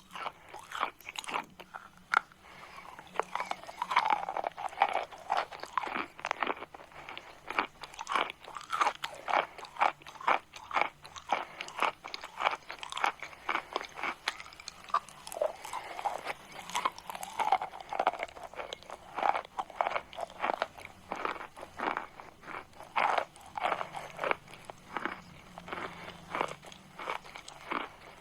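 Close-up crunching of chalk: many short, sharp, irregular crunches, several a second, continuing steadily.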